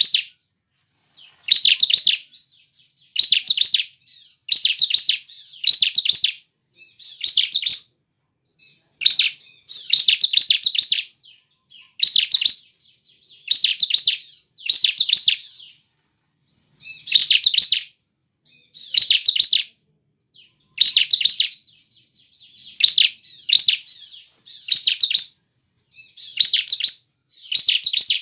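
Bar-winged prinia (ciblek) singing: loud, fast, high trilled phrases of about a second each, repeated every one and a half to two seconds, with softer twittering between some of them.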